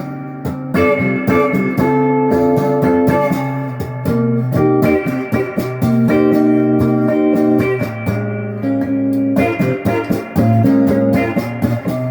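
Les Paul-style electric guitar with stock pickups, selector in the middle position, playing ringing chords through an amp, restruck every second or so with a couple of short breaks between phrases.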